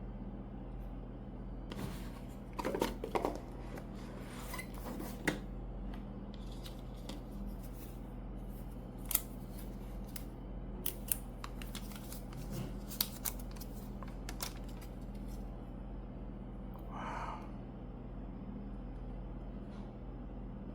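Unboxing handling noises over a steady low hum: a series of scattered sharp clicks, taps and short rustles of packaging and plastic, with a brief rustle near the end.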